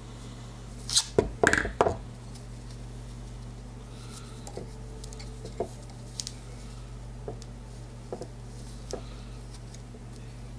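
A quick run of sharp clicks and knocks about a second in, as metal pliers are set down on a wooden tabletop, then a few faint scattered handling clicks, over a steady low electrical hum.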